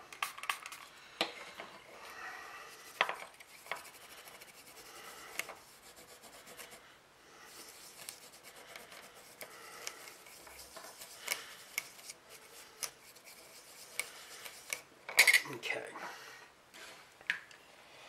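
Cloth rubbing over a small controller keypad circuit board as it is wiped clean with rubbing alcohol, with scattered light clicks and knocks of the plastic parts being handled on the tabletop and a brief louder clatter near the end.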